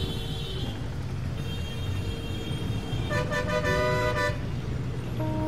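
Road traffic with engines rumbling and vehicle horns honking: a short horn at the start, a fainter one in the middle, and the loudest blast lasting about a second from about three seconds in.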